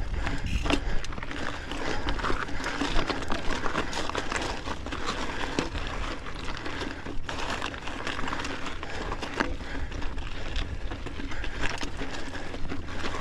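Mountain bike climbing a steep, rocky trail in its lowest gear: tyres crunching and clattering over loose rock, with many small irregular clicks and rattles over a steady low rumble.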